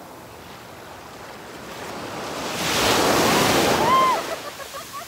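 A wave washing in at the shore: a rush of water building up over a couple of seconds, then dying away. A short, arched high chirp sounds at its peak, followed by a few faint chirps.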